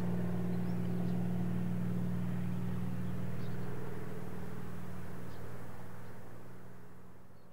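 Kamov Ka-26 helicopter with its two nine-cylinder radial piston engines running in a steady, even drone. The sound fades away over the last few seconds.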